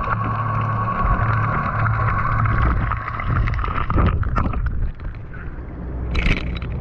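Boat motor noise carried through the water, heard underwater as a steady low hum with a high whine. It cuts off about four seconds in as the camera breaks the surface, followed by splashing and sloshing water, loudest about six seconds in.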